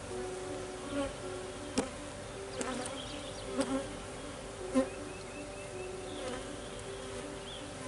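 Honeybees buzzing steadily in a low hum around an opened hive, agitated and flighty, with several short knocks as wooden hive frames are handled, the loudest nearly five seconds in.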